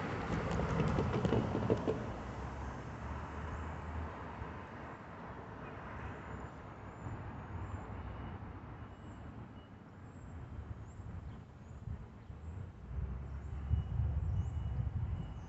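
Road traffic: a car drives past close by in the first two seconds, then quieter tyre and engine noise that swells again near the end.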